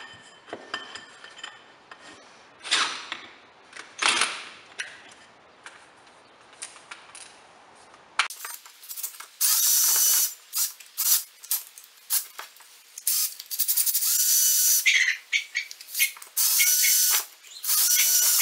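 Power drill with a 3/8 in bit drilling out the mounting holes of a cast aluminium Murray blade spindle housing. The drill runs in repeated short bursts of one to two seconds from about eight seconds in. Before that there are scattered clicks and clatter as the part is handled.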